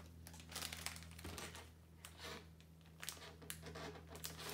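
Plastic snack bag crinkling in a series of short, irregular rustles as it is handled and opened.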